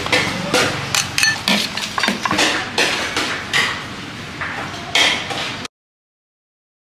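Metal utensils clinking and knocking against cookware, about two to three strikes a second, some ringing briefly. The sound cuts off abruptly near the end.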